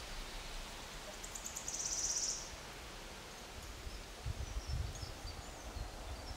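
Forest ambience: a steady hiss, with a short, high, evenly pulsed trill about a second in, faint high chirps after it, and low rumbles in the second half.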